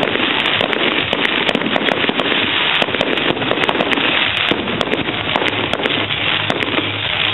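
Fireworks display going off in a dense, unbroken run of rapid crackles and pops, many small reports in quick succession.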